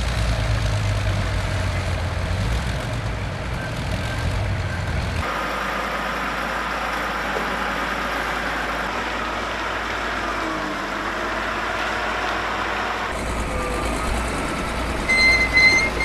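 Heavy vehicle engines running steadily, the background changing abruptly about five seconds in and again about thirteen seconds in. A few short high steady tones sound near the end.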